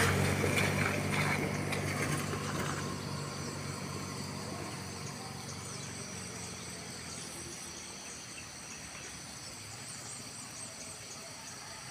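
A vehicle engine running and fading away over the first few seconds, leaving a faint outdoor background with a steady high-pitched insect drone and a few faint high chirps.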